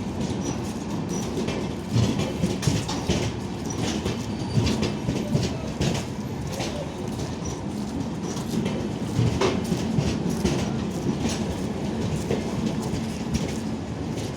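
LHB passenger coaches of an express train rolling by with a steady rumble, the wheels clacking at irregular intervals over rail joints and points.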